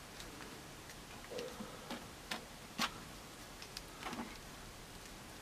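Light plastic clicks and taps, about half a dozen spread out, the sharpest a little under three seconds in, from a plastic action figure being handled and its head pressed onto its neck joint.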